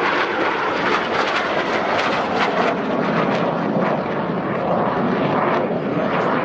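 Jet noise from the Red Arrows' BAE Hawk T1 jets flying their display, a loud, steady rush.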